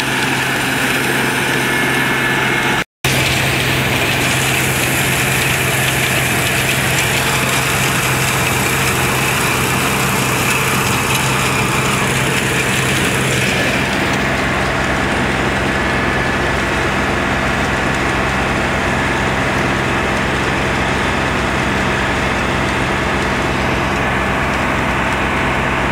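New Holland 8080 combine harvester running steadily under load while harvesting sunflowers, a constant engine and threshing drone. The sound cuts out completely for a moment about three seconds in.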